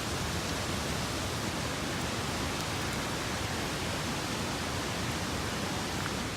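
Steady rushing of a nearby waterfall.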